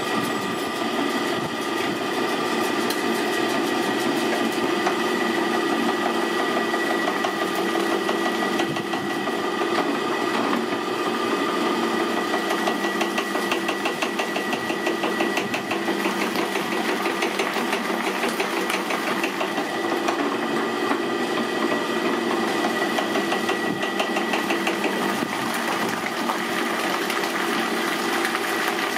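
Electric bakery mixer running steadily, its beater whipping cream in a large aluminium bowl: a constant motor hum with a steady whine over it.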